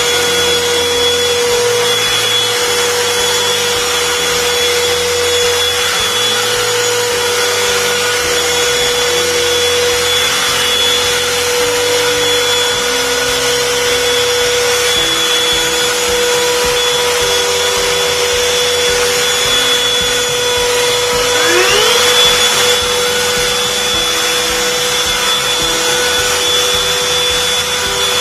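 Cordless handheld vacuum cleaner motor running steadily with a high whine over a rushing airflow noise. About three quarters of the way through, a rising whine sweeps up.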